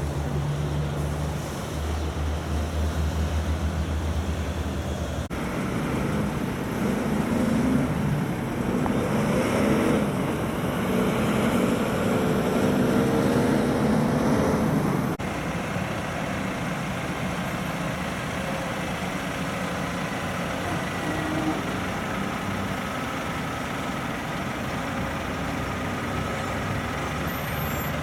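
Heavy diesel log trucks hauling loaded log trailers drive past, a steady engine drone with tyre and road noise. The sound changes abruptly about 5 and 15 seconds in, and is loudest between those two points.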